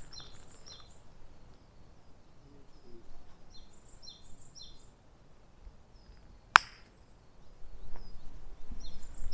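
A bird calling in short runs of three or four quick high notes, and about six and a half seconds in, a single sharp crack of a park golf club striking the ball.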